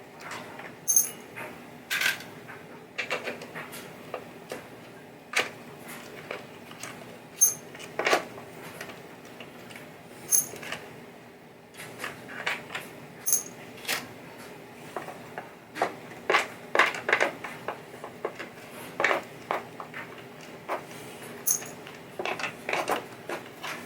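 Irregular clicks, taps and light clinks of screws, small parts and tools being handled as the plastics are removed from a pinball playfield. A faint steady hum sits underneath.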